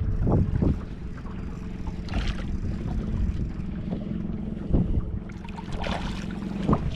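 Boat motor running with a steady hum, wind buffeting the microphone, and a few brief rushes of noise through it.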